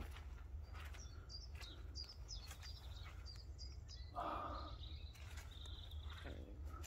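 Small birds chirping in short high notes, with a longer held call a little before the end. Underneath are occasional footsteps, a brief rustle about four seconds in, and a steady low rumble.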